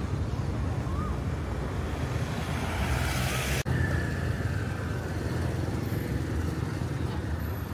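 Steady low rumble of background noise, with a brief dropout about three and a half seconds in.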